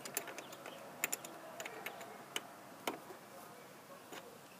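Faint, scattered small clicks and taps of hands working plastic wiring connectors and clips in a car's engine bay, at uneven intervals.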